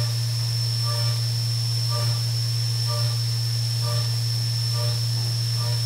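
DN Solutions DEM 4000 CNC mill cutting under flood coolant: a steady low hum with a steady high whine above it, and a short pitched note that recurs about once a second.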